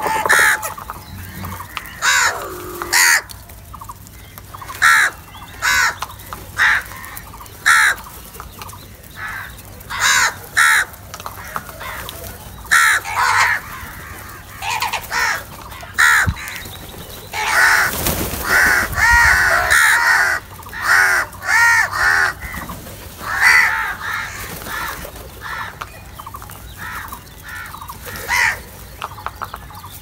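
A flock of house crows cawing: short harsh caws follow one another throughout, with several birds calling over each other a little past the middle.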